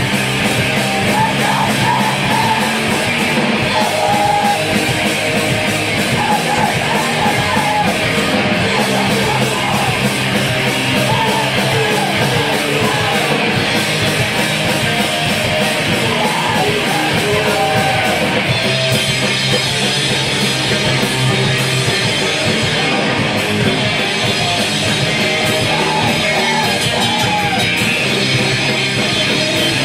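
Screamo/crust hardcore band playing live at full volume: distorted electric guitars, bass and pounding drums with cymbals, the arrangement shifting to a new section about two-thirds of the way through.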